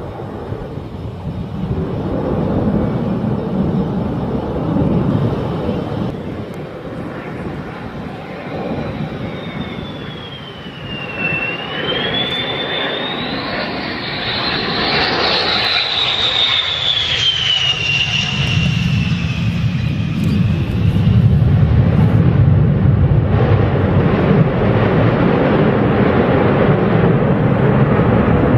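F-111 Aardvark's twin TF30 turbofan engines as the jet flies by. A high whine falls, rises and falls again in pitch through the middle, and a louder, deeper jet rumble builds near the end.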